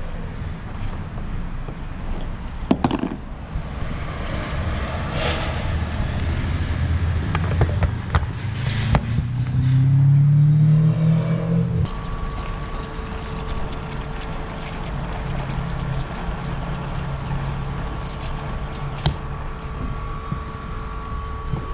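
Petrol being pumped into a boat's fuel tank: the filler cap and fuel nozzle clatter and click, a rising whine comes in about nine seconds in, and from about twelve seconds the fuel pump hums steadily as the petrol flows, over a low rumble.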